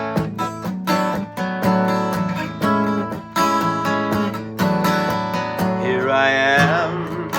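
Acoustic guitar strummed in a steady rhythm as a song's introduction; about six seconds in, a man's voice starts singing the first line over it.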